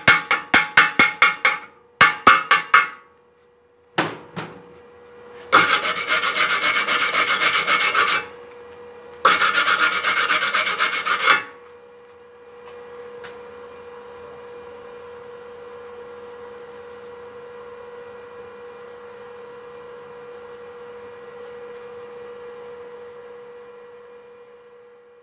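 Steel wire brush scrubbing slag off a fresh stick-weld bead: quick rapid back-and-forth strokes, a few single strokes, then two long bursts of continuous scrubbing about six and nine seconds in. After that only a faint steady hum remains.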